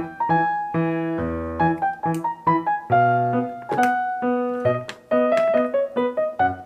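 Background music: a bright piano or electric-piano melody played in short, separate notes, a few to the second.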